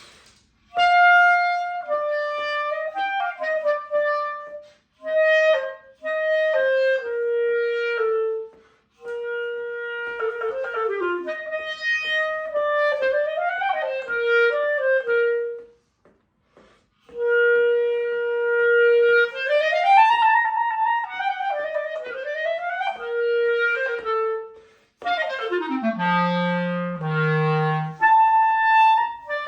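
Solo clarinet playing melodic phrases, broken by short pauses, with quick runs up and down. Near the end a fast descending run drops into the instrument's low register.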